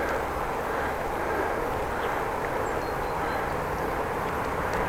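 Steady road and wind noise from riding a bicycle: tyres rolling on the street and wind rumbling on the microphone.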